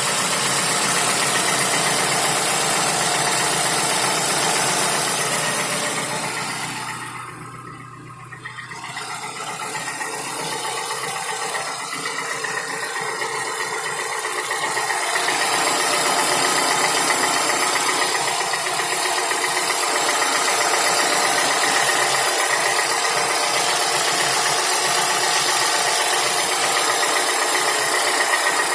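Toyota Camry's 2AR-FE 2.5-litre four-cylinder engine running warm with a steady rapid knock that the owner cannot trace: a rod knock was checked and not confirmed, and the timing chain seems fine. The sound briefly drops away about seven to nine seconds in, then returns unchanged.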